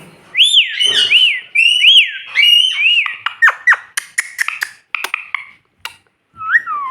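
Pet parrot whistling a string of short rising-and-falling notes, about two a second, then a run of quick downward-sweeping chirps and sharp clicks in the second half.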